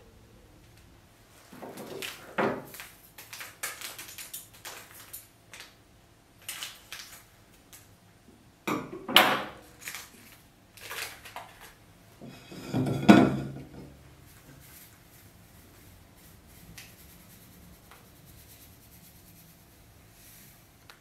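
A stainless steel mixing bowl being handled on a wooden table: a scatter of clanks and knocks, three of them louder, the last with a short metallic ring.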